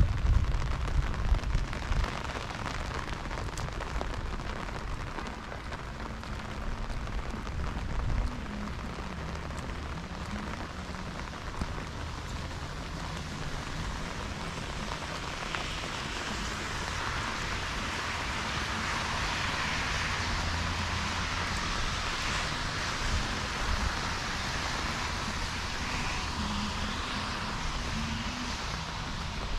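Heavy rain falling and hitting the ground and surfaces as a steady hiss that grows heavier about halfway through. Low rumbles come in the first couple of seconds and again around eight seconds in.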